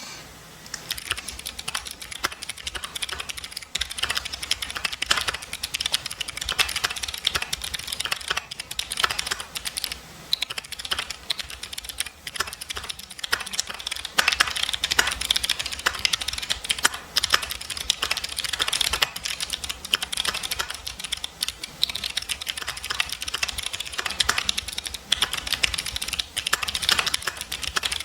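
Mechanical keyboard with jade switches being typed on continuously in quick, irregular keystrokes, a dense clickety-clack, starting about half a second in.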